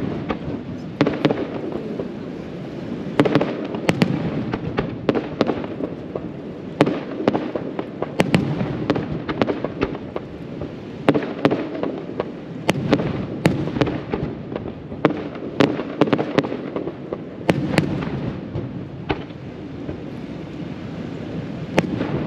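Fireworks display: aerial shells bursting in quick succession, with many sharp bangs, often several a second, over a steady low rumble.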